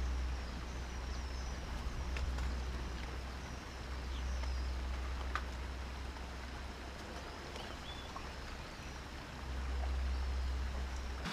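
Steady low outdoor rumble with an even hiss, and small birds chirping faintly now and then.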